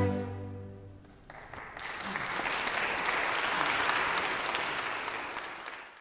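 A string orchestra's final chord dies away over the first second, then audience applause breaks out and carries on steadily, fading out at the very end.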